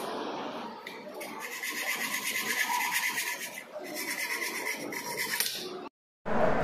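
Hacksaw cutting through a 1-inch metal pipe held in a bench vise, the blade rasping back and forth in repeated strokes. It cuts off abruptly near the end.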